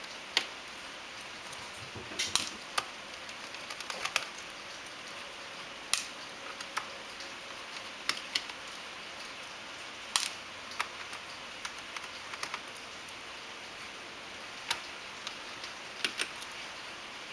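Irregular light clicks and taps as small screws are removed from a laptop's plastic bottom case and handled, some single, some in quick clusters, over a steady background hiss.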